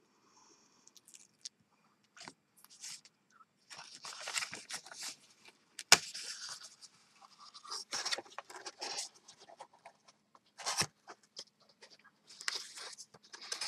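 Pink cardstock rustling and scraping as its scored flaps are folded up and pressed into a box shape, in irregular bursts of crinkling. A sharp click comes about six seconds in, and another near eleven seconds.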